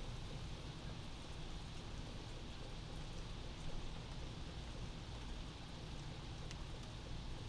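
Steady rain heard from inside a house, a soft even hiss with a few faint drip ticks.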